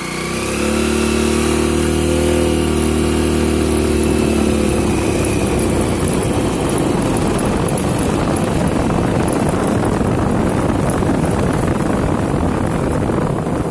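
Motorcycle engine running under way, its pitch easing slowly down over the first few seconds. After that, rushing wind and road noise on the microphone, fluttering rapidly, cover the engine.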